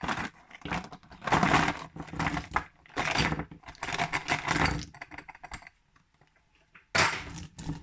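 Small hard-plastic Safari Ltd toy soldier figures rattling and clattering as they are taken out of their plastic tube, in irregular bursts of clicks. There is a quiet pause about five seconds in, then another clatter near the end.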